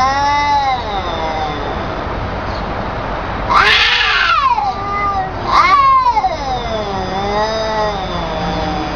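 Two cats, an orange tabby and a black-and-white cat, yowling at each other in a face-off: long caterwauls whose pitch wavers up and down. The first trails off about a second in, a louder one breaks out about three and a half seconds in, and a long drawn-out one follows.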